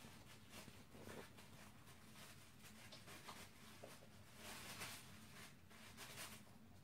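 Near silence: room tone with a few faint, brief rustles, the loudest about four and a half seconds in and another shortly after six seconds.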